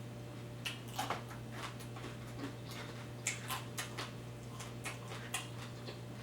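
Close-miked chewing of crunchy tortilla-chip nachos: irregular crisp crunches and mouth clicks.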